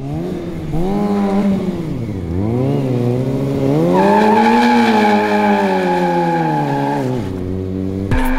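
Kawasaki Ninja sportbike engine revving up and down. From about four seconds in, its rear tyre squeals steadily for some three seconds in a rolling burnout.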